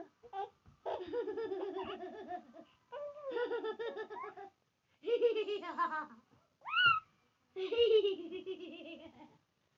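A young child laughing and giggling in about five breathless bouts, with a short, sharply rising squeal about seven seconds in.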